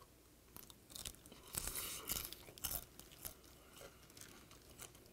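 Crunching and chewing of a crispy microwaved whiteleg shrimp head, shell and all, in irregular faint crunches that thin out in the last couple of seconds.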